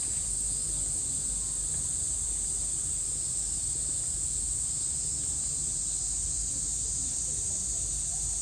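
Steady high-pitched droning of a summer insect chorus, most likely cicadas, unbroken throughout, over a low steady background rumble.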